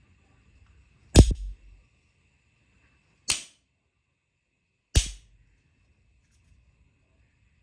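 Three sharp bangs about two seconds apart, the first the loudest, with a smaller knock right after it.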